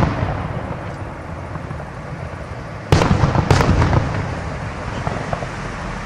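Aerial firework shells bursting: two sharp bangs about half a second apart near the middle, each trailing off in a long echo, after the fading tail of an earlier burst.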